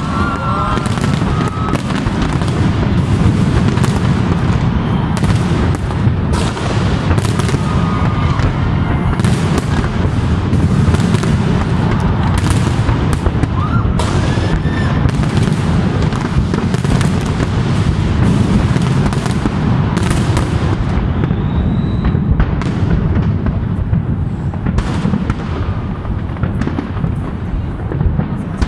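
A big fireworks display: aerial shells bursting in rapid, overlapping succession with crackling over a continuous low rumble. The bangs come less thickly in the last several seconds.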